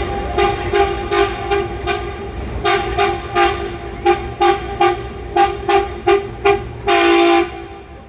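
Train horn sounding a rapid run of short toots, about two or three a second with brief gaps, ending in a longer blast about seven seconds in, over a low steady rumble.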